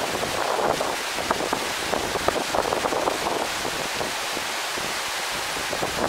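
Garden waterfall pouring into a pond: a steady rush of falling water with uneven splashing.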